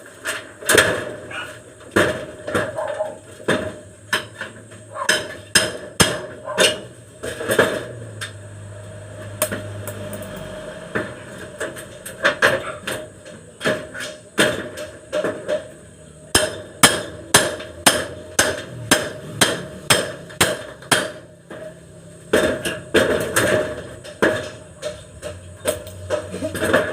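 Hammer blows in carpentry work, struck in quick runs of sharp knocks with short pauses between, and a longer lull about a third of the way through.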